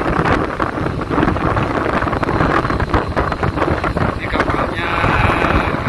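Wind buffeting the phone microphone on the open deck of a moving ferry, over the steady rumble of the ship and the rush of the sea.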